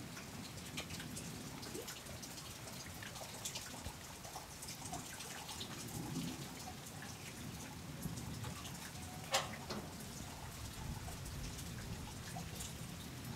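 Light rain dripping, with scattered small ticks of drops and one sharper tap about nine seconds in.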